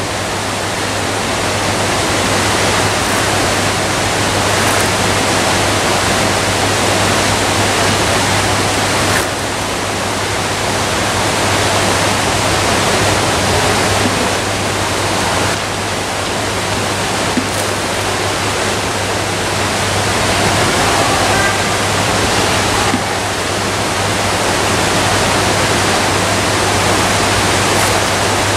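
Steady rush of splashing water at the surface of a large aquarium tank, with a steady low hum underneath.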